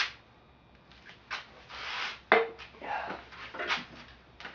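Bicycle parts and tools being handled on a workbench: a few scattered knocks and scraping rustles, with one sharp clack about two seconds in.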